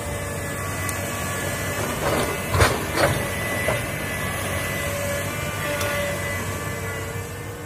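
Komatsu crawler excavator working: its diesel engine runs steadily under load with a steady whine over it, and a few sharp knocks come as the machine works through brush. The loudest knocks fall about two and a half and three seconds in.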